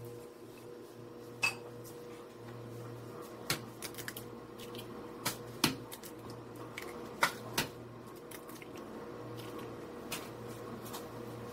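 Raw eggs cracked one-handed against the rim of a stainless-steel mixing bowl: a series of sharp taps, several in quick pairs, about five eggs in all. A steady low electrical hum runs underneath.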